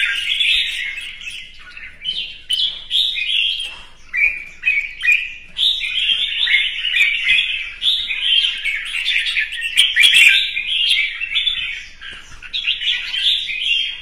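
Red-whiskered bulbul singing a near-continuous run of quick, chattering phrases, pausing briefly about two and four seconds in and again near the end.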